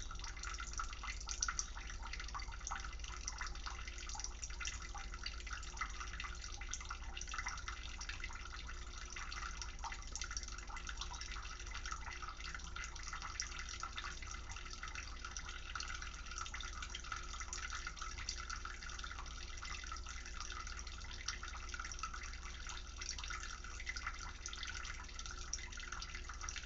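Kitchen tap running steadily into a bowl in the sink, a continuous splashing trickle.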